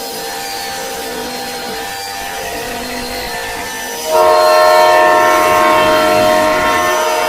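Emergency alert horn alarm: a steady multi-note drone, then a louder blaring chord of several held tones comes in about four seconds in and sounds on.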